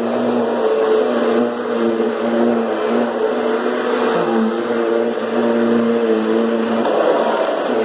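Kirby G10 Sentria upright vacuum running, its motor a steady whine over a rushing airflow hiss. The pitch shifts up and down a little as it is worked across the floor.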